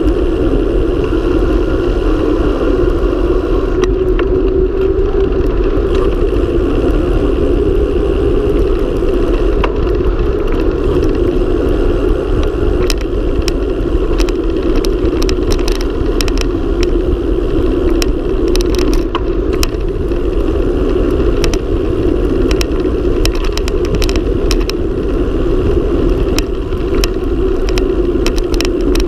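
Steady loud rush of wind and tyre noise on the camera's microphone as a mountain bike descends a paved road at high speed, with frequent small rattles and clicks from bumps and potholes in the asphalt.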